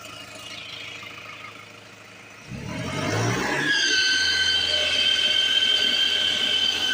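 XCMG mini loader's diesel engine idling quietly, then revved about two and a half seconds in with a rising rumble, after which a steady high-pitched squeal sets in and holds.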